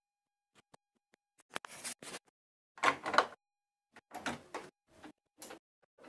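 A door being worked: irregular clusters of clicks and rattles from the lock and handle over a few seconds.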